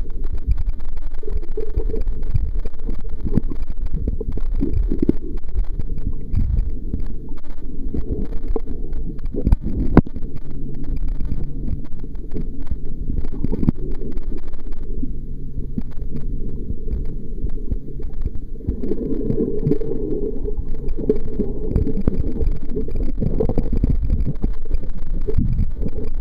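Muffled underwater rumble of water moving against a submerged camera, with scattered knocks and a steady low hum through the middle stretch.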